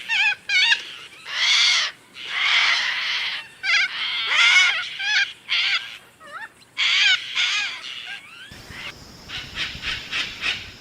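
A series of short, loud animal calls with wavering, bending pitch, several a second in places. Near the end they change to a rapid, raspier run of calls.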